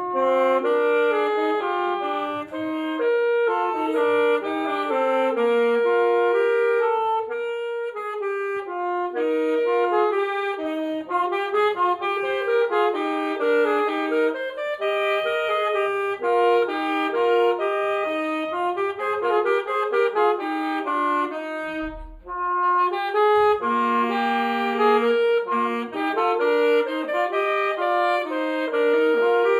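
Two alto saxophones playing a duet melody, often in two parts at once. The playing breaks off briefly about two-thirds of the way through, then carries on.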